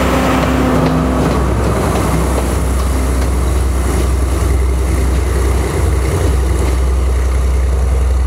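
Diesel passenger train passing close by, a loud steady rumble of engine and running gear with a strong low hum.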